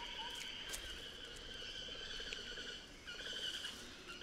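A long, pulsing trill of an animal call, which breaks off briefly about three seconds in and then resumes, with a few faint clicks.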